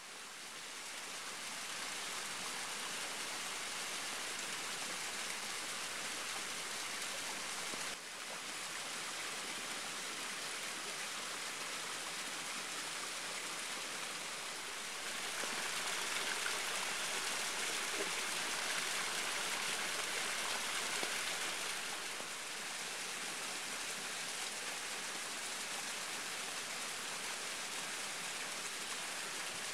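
Small waterfall spilling down a rock face: a steady rushing and splashing of water that fades in at the start and grows louder for several seconds past the middle.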